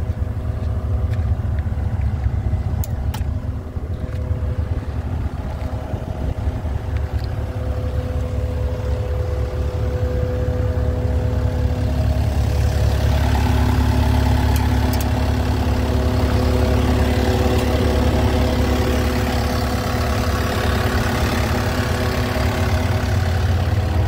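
Diesel engine of a Cat 272D2 skid steer idling steadily, growing somewhat louder about halfway through.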